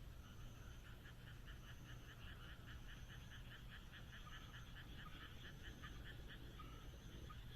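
Frogs croaking at night: a fast run of call pulses, about five a second, that stops about six and a half seconds in, leaving a few scattered notes. Under it runs a faint steady low hum, and a high thin tone comes in short repeated dashes.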